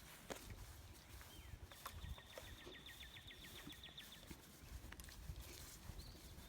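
A songbird singing a rapid, even trill of about eight high notes a second, lasting a little over two seconds, with a few short high chirps around it. Faint low thumps and rumble sit underneath.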